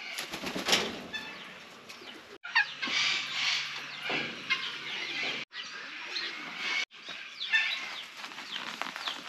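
Caged aviary birds chirping and calling, many short high calls one after another, with the sound cutting off abruptly three times.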